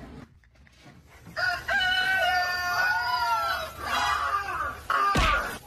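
A dog howling in a long, drawn-out crowing call, like a rooster's crow, that holds its pitch and then falls away, followed by a shorter call. A sharp thump comes near the end.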